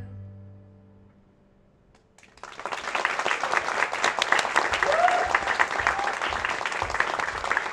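The last guitar note of the song fades away, then an audience starts clapping about two seconds in and keeps applauding, with a single cheer about halfway through.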